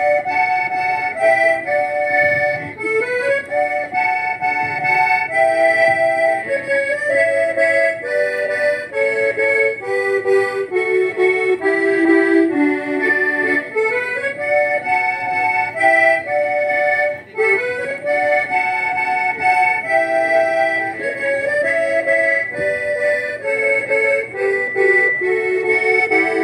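Gaita (accordion) music without singing: a melody of held notes over chords.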